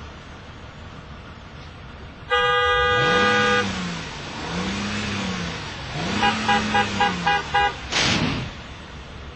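Car horn held for about a second, then honked in a quick run of about seven short beeps, with a low sound rising and falling in pitch three times underneath. Near the end comes a sudden loud burst.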